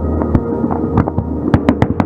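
Fireworks bursting in quick irregular succession, many sharp bangs and crackles over a steady low hum and sustained tones.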